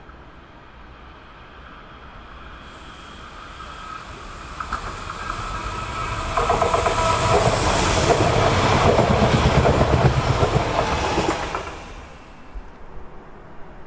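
Bombardier Talent 2 (class 442) electric multiple unit approaching and running past on a curve, growing steadily louder over several seconds with a steady whine over the rolling noise, then cutting off suddenly near the end.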